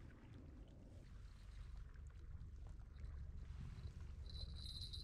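Low, steady wind rumble on the microphone at the open lakeshore, with a few faint small ticks. A thin, steady high-pitched tone comes in during the last couple of seconds.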